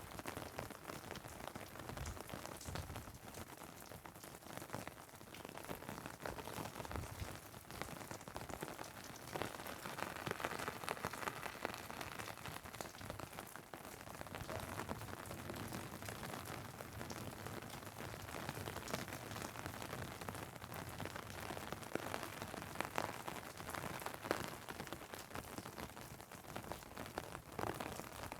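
Steady rain falling on an umbrella and on asphalt, with many separate drops ticking.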